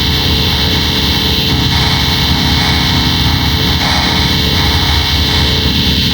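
Loud, heavily distorted effects-processed audio: a dense, steady buzzing drone with a fast rough flutter in the low end and no clear melody.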